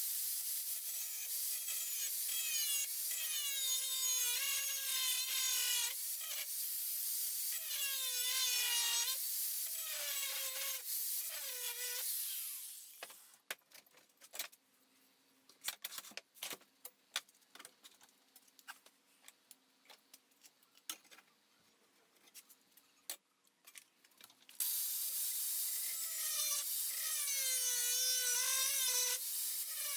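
Angle grinder grinding steel angle iron, its motor whine sagging in pitch each time the disc bites under load and recovering between passes. It stops after about twelve seconds, leaving scattered clicks and knocks of handling, and starts grinding again near the end.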